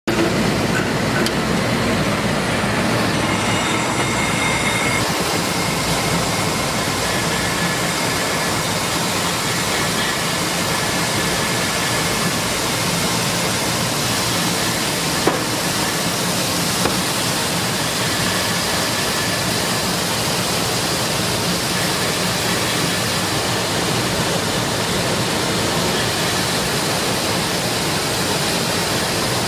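A 6FT-PD1 combined maize grits milling machine running with a loud, steady mechanical noise while corn grits pour from its outlet chute. A single sharp click comes about halfway through.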